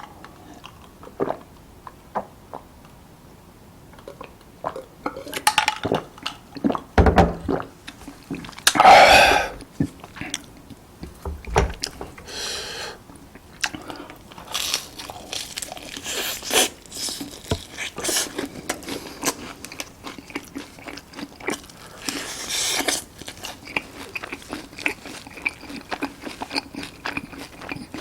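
Close-miked eating: crunchy bites and chewing, with small clicks of utensils. A louder burst of noise comes about nine seconds in, and the crunching grows denser in the second half.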